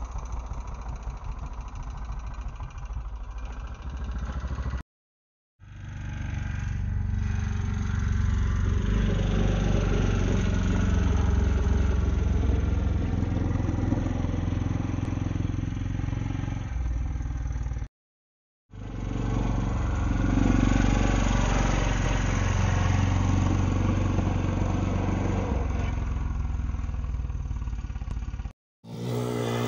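Pit bike's small single-cylinder engine running and revving as it rides round the track, its pitch rising and falling with the throttle. The sound drops out completely for a moment twice, at edits.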